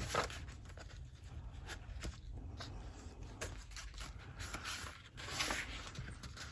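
Soft paper rustling with light taps and scrapes as the pages of a handmade junk journal are turned and its papers handled, slightly louder about five seconds in.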